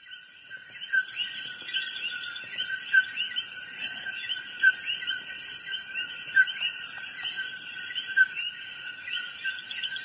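Insects, most likely crickets, chirping in a steady chorus, with a louder chirp standing out about every two seconds.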